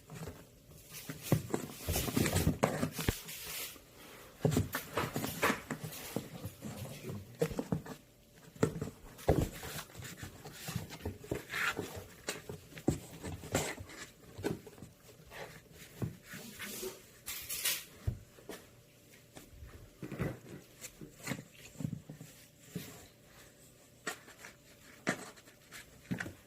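Kittens scratching, batting and scrambling at a box, poking their paws through its holes: irregular scratching, rustling and light knocks.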